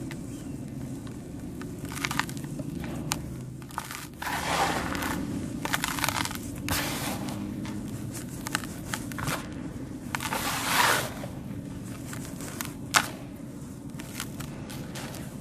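Lumps of dried sand cement being crushed, crumbling in a series of gritty crunches and crackles, with a sharp crack about thirteen seconds in, over a steady low hum.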